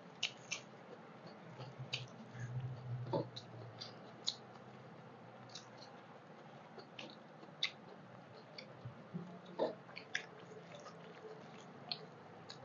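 Two people eating rice and curry by hand: soft chewing and wet mouth smacks, with fingers squishing rice against steel plates, heard as scattered short clicks.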